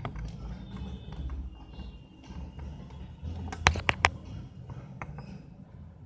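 Three quick sharp clicks a little past the middle, from small hard parts being handled: a phone charging-port board and multimeter probe tips. Under them runs a steady low hum.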